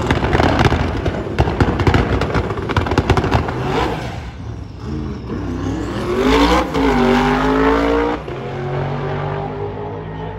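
Drag cars launching off the line. Loud engine noise with rapid crackle for the first few seconds, then one engine rising in pitch, dropping once as it shifts gear, rising again, and easing off as it runs away down the strip.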